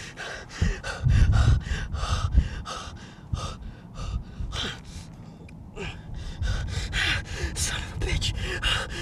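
A man breathing in rapid, ragged gasps, about four a second, as if panting in distress. A low rumble rises under the breaths about a second in and lasts a second or so.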